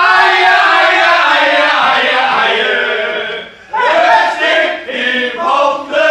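Several men's voices raised together in a loud sung chant: one long held note sliding slowly down for about three seconds, then a brief pause and more chanting.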